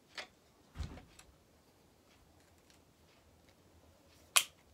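Metal handling clicks from a side-by-side coach shotgun being put back together: a light click and a dull knock in the first second, then one sharp metallic snap near the end, the loudest sound, as a part snaps into place.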